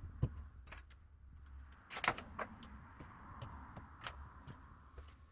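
Scattered small clicks and knocks of a charging cable being plugged into an iPhone 15 and the phone being handled, loudest about two seconds in, over a low steady hum.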